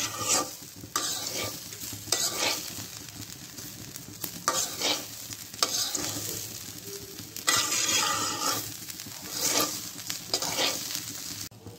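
A metal spatula scraping and turning raw rice in a karai (Bengali wok), the grains sizzling in hot oil as they are dry-fried. A scrape comes every second or two, at uneven intervals.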